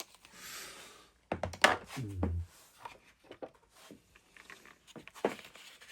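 Small watchmaker's tools being handled: scattered clicks and light knocks, with a brief hiss near the start and a short low buzz about two seconds in.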